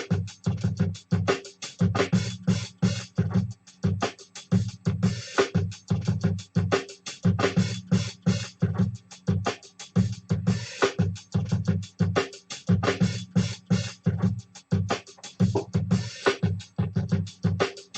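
Homemade synthesizer playing through PC speakers and a subwoofer: a fast, choppy, stuttering pattern of short bass pulses mixed with hissy noise bursts.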